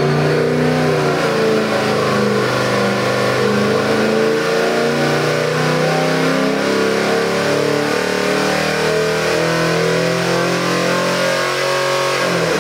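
331 cubic inch small-block Ford V8 stroker running loud under load on an engine dyno during a sweep test, its revs climbing from about 3,400 to 5,500 rpm as it pulls to just over 400 horsepower.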